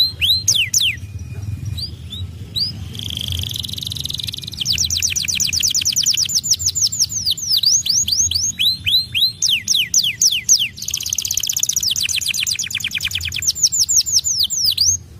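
White domestic canary singing: fast runs of repeated downward-sweeping notes broken by buzzy rolls, cutting off abruptly near the end.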